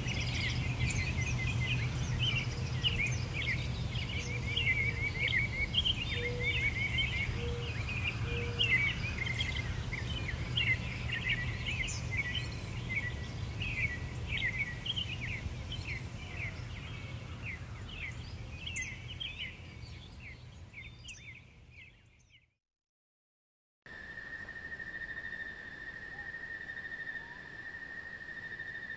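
A chorus of many birds chirping and trilling over a steady low rumble, fading out about twenty-two seconds in. After a moment of silence, a steady, high-pitched insect drone begins.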